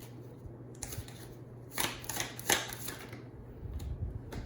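Tarot cards being shuffled and handled, a run of papery rustles and flicks loudest about two seconds in.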